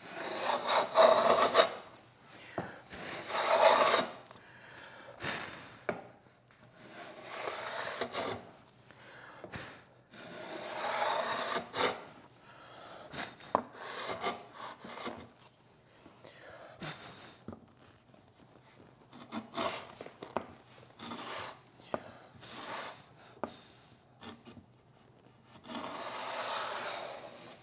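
Bench Dog router plane shaving wood from the bottom of a dado: a series of rasping cutting strokes, each a second or two long, with light clicks and knocks of the plane between them. The plane is cleaning the dado out to an even depth.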